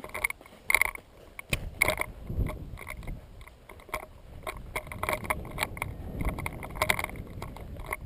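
Rustling and light knocks of gear handled right at the microphone. From about a second and a half in, wind rumbles on the microphone.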